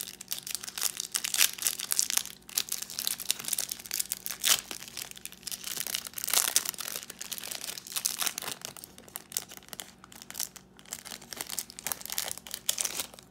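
Thin clear plastic wrapper on a pack of baseball cards crinkling in irregular crackles as fingers pick at it and peel it open.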